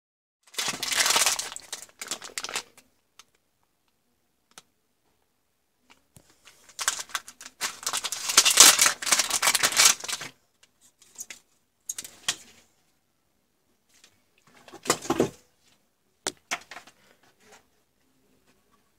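Crinkling of a metallised plastic zip-lock bag being handled and opened, in two long spells, the second louder. Then a few short plastic clacks and rustles as an LED strip reel and a power supply brick are picked up.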